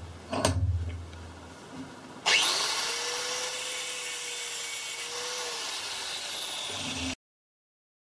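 A metal clank from the bench vise being tightened, then an angle grinder with a cut-off disc starts about two seconds in, spinning up with a rising whine, and cuts through a bundle of steel screws clamped in the vise with a steady grinding note. It cuts off suddenly near the end.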